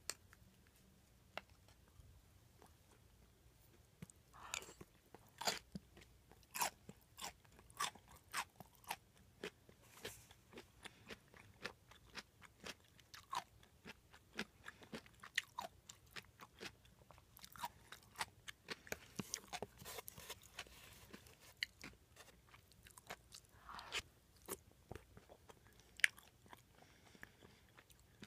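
Close-miked chewing of a mouthful of hayashi rice: a quick run of short, sharp wet clicks and smacks from the mouth, starting about four seconds in.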